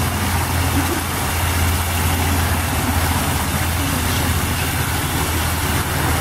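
A stream of water from an outdoor wall spigot pouring and splashing into a plastic kiddie pool, a steady hiss. A steady low hum runs underneath it.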